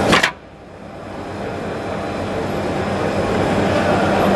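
Steady machine and room noise with a low hum. A short, sharp hiss-like burst comes right at the start, then the noise drops away abruptly and slowly swells back up over a couple of seconds.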